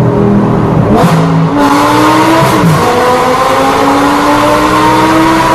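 A 1.7-litre turbo car engine accelerating hard through the gears in a tunnel, heard from inside the cabin: the pitch climbs, falls sharply at an upshift about two and a half seconds in, then climbs again until the next shift at the end. A burst of hiss comes about a second in.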